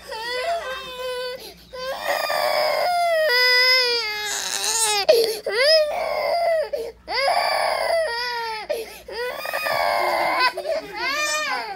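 A toddler crying in a run of long, drawn-out wails with short breaks between them, one climbing to a high shriek about four seconds in.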